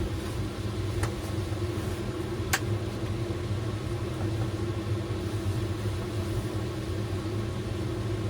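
A steady low mechanical hum, with two faint clicks about one and two and a half seconds in.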